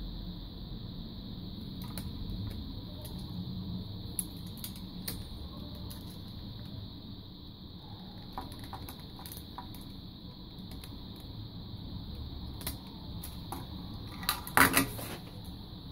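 Small plastic parts of a disassembled headphone earcup and headband clicking and rattling as they are handled and fitted together, with a short louder clatter near the end.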